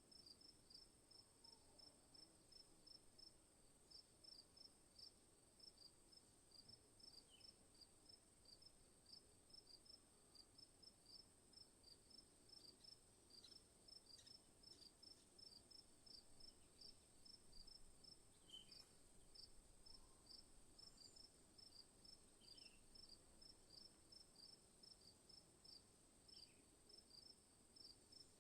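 Faint forest insects: a steady high-pitched drone with a regular high chirp repeating about four times a second.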